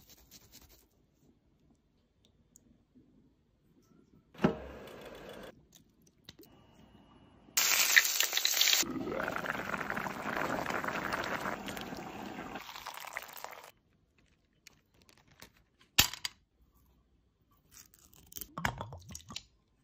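A run of separate kitchen sounds: a short burst about four seconds in, then several seconds of a loud, even bubbling hiss from broth boiling hard in a pan. A sharp click comes later, and near the end a small knife scrapes and cuts through the foil seal on a whisky bottle's neck.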